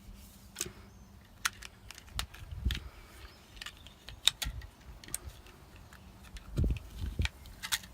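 Sharp irregular clicks of 9mm cartridges being pressed one at a time into a KCI 33-round Glock magazine with a Glock speed loader, with a few soft knocks of handling.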